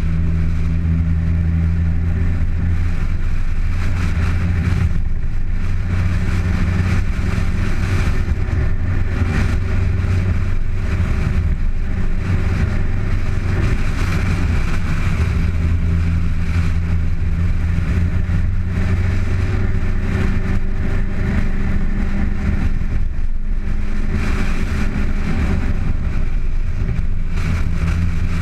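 Car driving on an uphill road: engine running steadily under load, its pitch stepping up and down every few seconds, mixed with road and wind noise picked up by a camera mounted outside the car.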